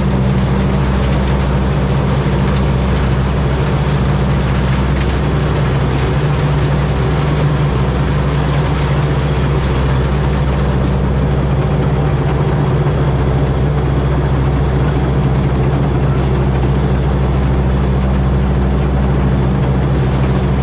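Combine harvester with a turbocharged 225-horsepower Mitsubishi engine running steadily: a deep, even engine hum under dense mechanical noise that doesn't let up.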